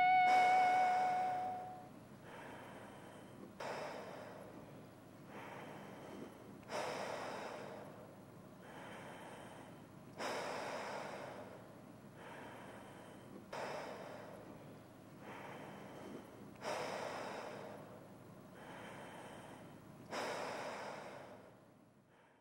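Slow, deep human breathing close to the microphone: a stronger breath about every three and a half seconds, with a weaker breath between each pair. A lingering guitar note dies away in the first two seconds.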